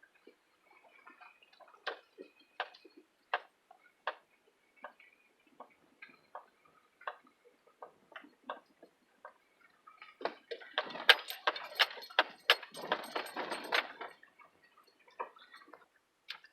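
Irregular clicks and knocks, with a denser burst of rattling about ten seconds in: loose things and fittings rattling inside a car as it jolts over a rough, rutted dirt road.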